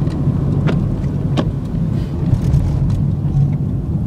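Steady low rumble of a car's engine and tyres on a wet, roughly surfaced road, heard inside the cabin, with a couple of sharp knocks about a second in.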